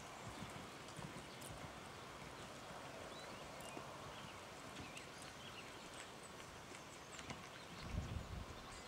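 A horse's hoofbeats on a sand arena, faint and dull. About eight seconds in there is a louder burst of low thuds as the horse turns tightly around a barrel, digging into the sand.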